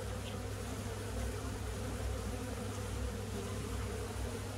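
Honeybees buzzing in a steady low hum from a small, weak colony disturbed as its comb is cut out of a wall cavity.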